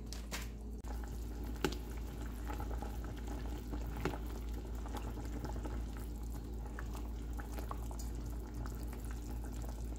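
Pot of pork sinigang broth with eggplant boiling on the stove, bubbling steadily as a spoon stirs it. Two sharp clicks of the spoon against the pot, about a second and a half in and again about four seconds in.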